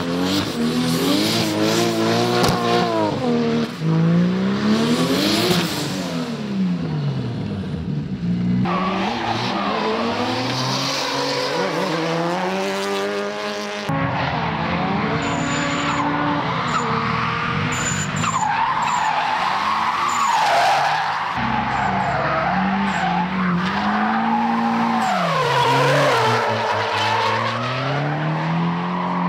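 Drift cars sliding at full throttle: engines revving up and down over and over, with tyres squealing and skidding. The sound jumps abruptly a few times as it changes from one car to the next.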